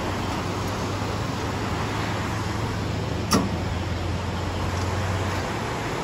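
A road vehicle's engine hums low and steady, then stops about five and a half seconds in, over a steady rush of water from a small waterfall. A single brief click comes about three seconds in.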